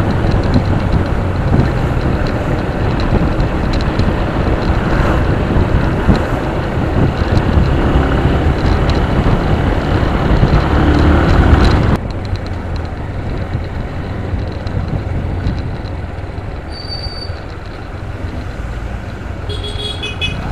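Motorcycle running on the road, heard through heavy wind rush on the bike-mounted microphone. The rumble drops suddenly about twelve seconds in and runs quieter after that, with a few brief high tones near the end.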